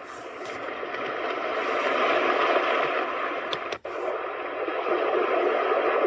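iDealSleep white noise machine's small speaker playing a steady rushing noise sound, cutting out for a moment about four seconds in.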